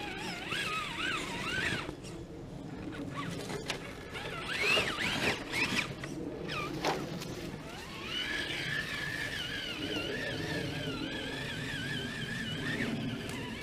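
Whine of a radio-controlled scale crawler's electric motor and gears as it climbs a slope. The pitch rises and falls with the throttle, and there are a couple of short knocks as it bumps over the ground.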